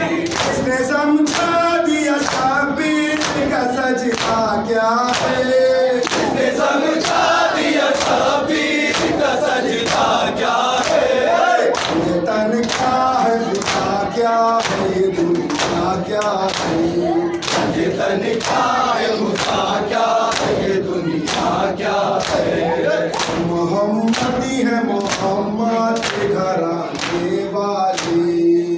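A group of men chanting a noha in unison, led over a microphone. A steady beat of sharp hand slaps on chests (matam) keeps time with the chant.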